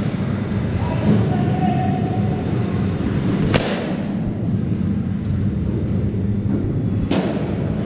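Cricket bat striking the ball twice, two sharp cracks about three and a half seconds apart, over a steady low rumble of the net hall.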